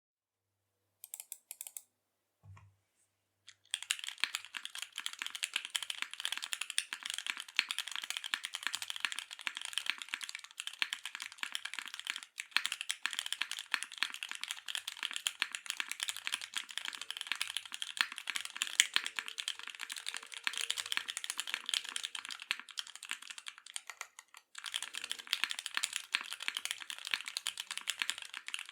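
Continuous fast typing on a Singa x TGR Unikorn R1 mechanical keyboard: lubed and filmed Alpaca V2 linear switches on an aluminium plate, O-ring gasket mounted, with GMK keycaps and no sound dampening. A few clicks and a low thump come first. The typing starts about four seconds in and goes on, with brief pauses about twelve and twenty-four seconds in.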